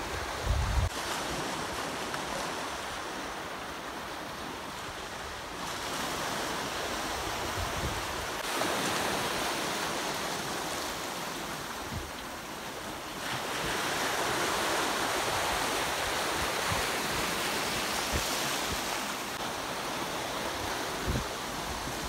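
Small sea waves breaking and washing over sand in the shallows, a steady surf hiss that swells louder about eight seconds in and again from about thirteen seconds. Short gusts of wind rumble on the microphone near the start and near the end.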